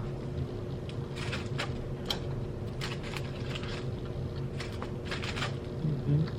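Close-up chewing with crisp crunches from fried food, in several irregular bursts of bites, over a steady low hum.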